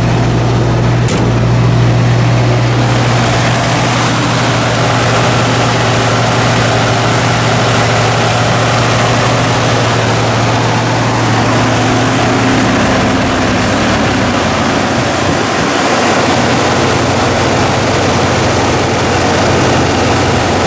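1982 Ford F-150's carbureted engine idling steadily just after a cold start, running on a choke set by hand because the automatic choke is not engaging.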